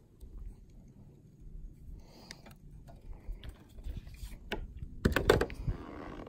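Scattered light clicks and knocks of a fishing rod and a freshly landed bass being handled aboard a plastic kayak, with a louder flurry of knocks about five seconds in.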